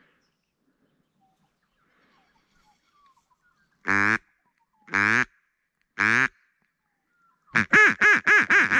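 Duck quacking: three loud, drawn-out quacks about a second apart, starting about four seconds in, then a quick run of about six quacks near the end.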